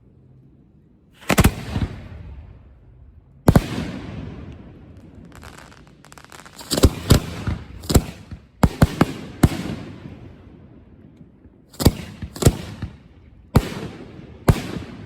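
Fireworks going off: a string of sharp bangs at uneven intervals, bunched most thickly in the middle, each trailing off in a rolling echo.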